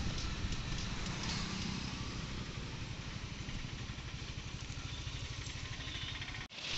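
Motorcycle engine running steadily at low speed, a fast even low pulsing with road noise over it; it breaks off suddenly near the end.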